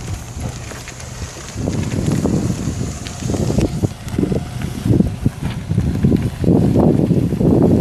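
Wind buffeting the microphone in irregular gusts, strongest near the end, over a 1998 Dodge Dakota pickup driving slowly past.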